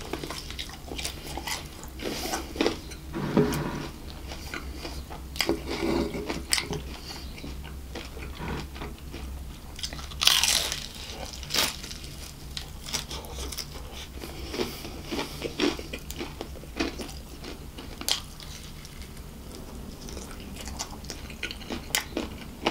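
Close-miked biting and chewing of KFC crispy fried chicken: the breaded crust crackling and crunching in irregular bites, the biggest crunch about ten seconds in, with chewing between. A low steady hum sits underneath.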